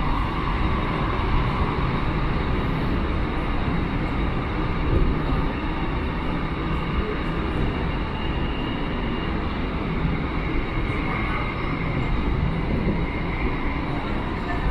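Cabin noise of an electric commuter train running along the track: a steady rumble of wheels and running gear, with faint whining tones higher up.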